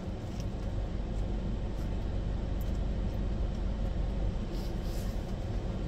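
Steady low rumble and hum of a car idling, heard from inside its cabin, with a few faint rustles near the end.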